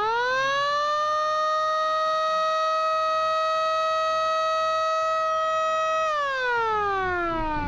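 Battery-powered electric motor siren switched on by a push button: it winds up into a steady wail, holds for about five seconds, then winds down in pitch near the end.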